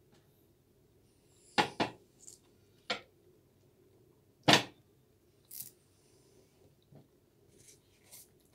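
Handling noises close to the microphone: a few sharp knocks and clatters as a plate of food is moved aside and a banana is picked up. The loudest knock comes about halfway through, with smaller ones before and after.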